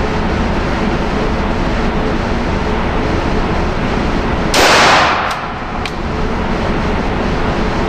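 A single 9mm Glock pistol shot about four and a half seconds in, ringing away over about half a second, over a steady background rumble.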